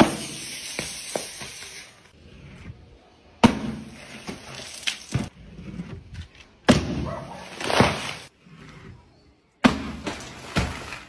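Full plastic drink bottles hitting a wooden board from a height and bursting, four times about three seconds apart. Each is a sudden bang followed by a rush of spraying, splashing liquid and a few smaller knocks.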